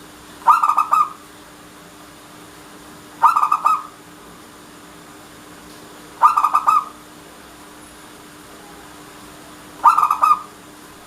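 Zebra dove (local Indonesian perkutut) cooing in four short phrases a few seconds apart. Each phrase is a quick stutter of coos lasting about half a second.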